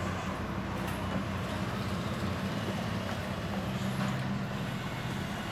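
Steady low mechanical hum, unchanging throughout.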